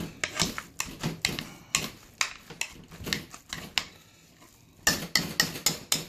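Metal utensils clacking and scraping against the side of a metal pot while potatoes are mashed and stirred: a long-handled spoon and then a wire potato masher. The knocks come several times a second, pause briefly near the middle, then come fast and loud near the end.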